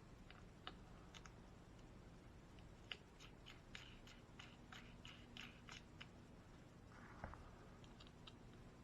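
Faint light clicks of small bolts, nylon spacers and tools being handled during kit assembly: a few scattered ones, then a quick run of about a dozen in the middle.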